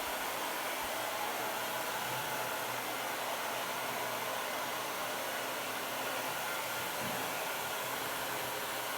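Hair dryer running steadily on its hot setting, blowing on a refrigerator's dried-out rubber door gasket to soften it so it reshapes and seals again.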